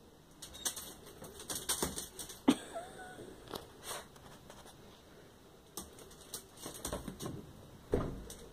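Dogs' claws clicking and scuffling on a concrete floor in bursts as an old English sheepdog tussles with a small dog, with a sharp click about two and a half seconds in followed by a short whine, and a thump near the end.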